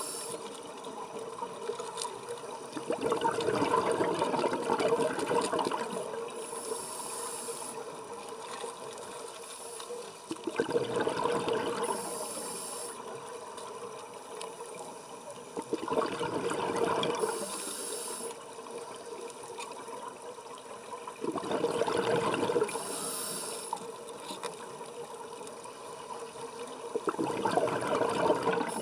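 Scuba diver breathing through a regulator underwater: about five slow breath cycles, each a rush of exhaled bubbles followed by a short hissing inhalation, roughly every six seconds.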